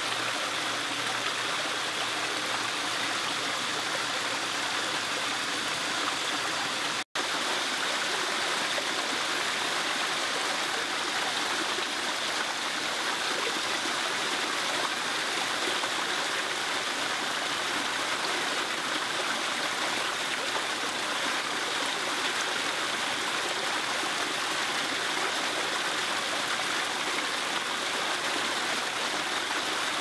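Small stone-ledge waterfall in a garden pond splashing steadily, with the sound cutting out for an instant about seven seconds in.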